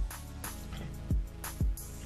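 Music with a steady beat: deep bass drum hits that slide down in pitch, together with sharp, crisp high percussion hits.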